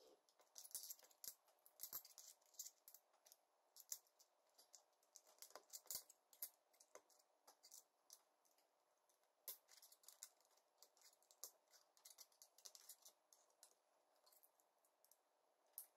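Faint, irregular clicking and light rattling of small plastic building-set pieces being handled and pressed together.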